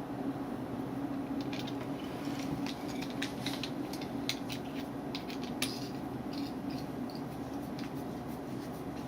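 A run of small, light clicks and scratchy handling noises, clustered in the middle, over a steady low hum.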